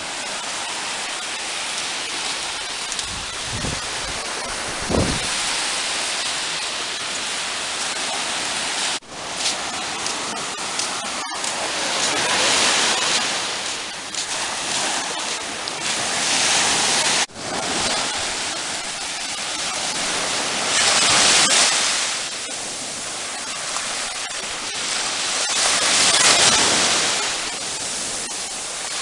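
Sea surf washing onto a sandy beach, a steady rush that swells and eases every four to five seconds. The sound cuts out abruptly for a moment twice.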